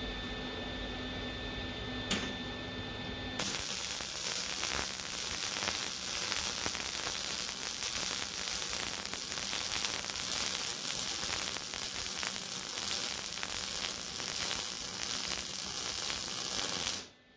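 Arc welding on 5/16-inch steel plate and C channel: a steady crackling sizzle starts abruptly a few seconds in, runs for about 13 seconds and stops abruptly. Before it, a machine hum and a single click.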